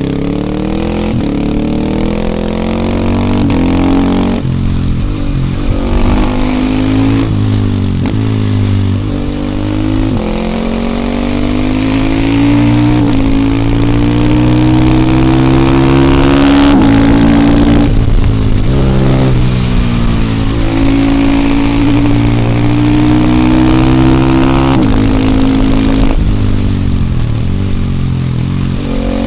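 KTM 450 EXC supermoto's single-cylinder four-stroke engine under way, its pitch climbing as it accelerates and dropping sharply at each gear change several times, with longer stretches of near-steady running in between.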